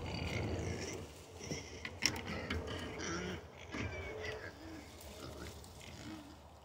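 A group of wild hogs giving short grunts and a few brief squeals.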